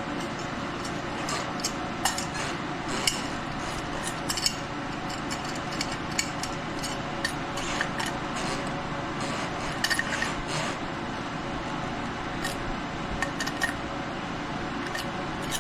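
Light metal clicks, clinks and scrapes of a push-in cable connector being worked into a metal electrical junction box, coming irregularly over a steady background hum.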